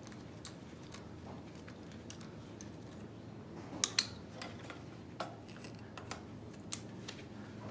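Small metal clicks and taps of a compression tester's hose and brass adapter being handled and threaded into the next cylinder of a Mercedes OM642 V6 diesel engine, with two louder clicks about four seconds in and a few lighter ones after.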